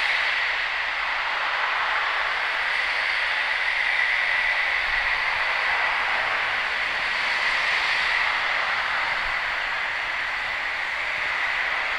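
Small loudspeakers of a sound installation playing a steady band of white-noise-like hiss that swells and eases gently every few seconds.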